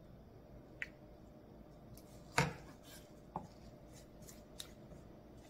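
Wooden spoon knocking and scraping against a tray while spreading thick seasoning paste onto perilla leaves: a few separate soft knocks, the loudest about two and a half seconds in, with fainter ticks after.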